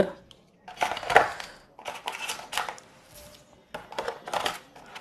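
Cardboard phone-box packaging and its accessories handled by hand on a table: three short spells of rustling and scraping.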